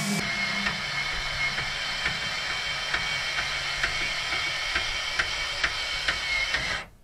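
Newly fitted BAL C-Jack replacement motor on an RV stabilizer jack running steadily as it retracts the jack, with a light regular click about two to three times a second. It stops suddenly near the end. The even running shows the new motor working.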